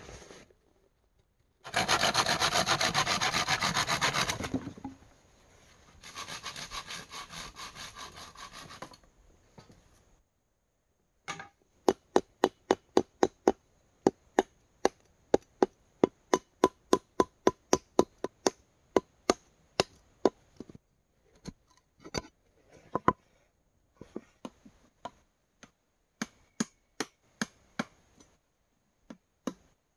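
Rapid rasping strokes on wood for a few seconds, a loud spell then a quieter one, followed by a machete chopping into a bamboo pole, sharp blows about two a second that grow sparser toward the end.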